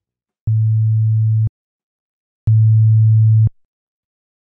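A pure sine-wave test tone near A2, low and steady, sounds twice for about a second each with a gap of silence between. It is fed through a TL Audio Ivory tube compressor, and the second tone carries a faint overtone an octave up: harmonic distortion added by the tube circuit.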